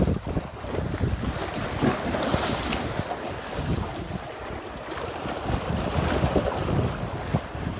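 Sea surf washing and breaking around concrete breakwater blocks, with wind buffeting the microphone, swelling about two seconds in.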